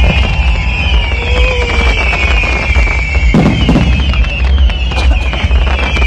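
Aerial fireworks display going off nonstop, with dense crackling and a constant deep rumble. A heavier low boom comes about three and a half seconds in.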